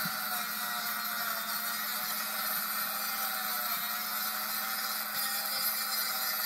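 Dremel rotary tool running at a steady high speed, its bit grinding the edge of a plywood saw-handle piece to smooth and shape it: a steady whine over a hiss of abrasion.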